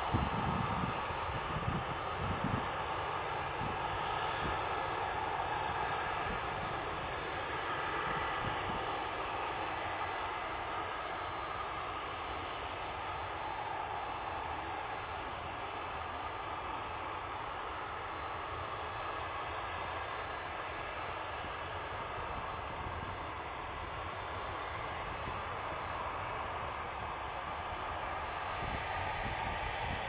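Airliner engines running at a distance: a steady, even noise with a thin high whine above it. Low buffeting on the microphone in the first few seconds.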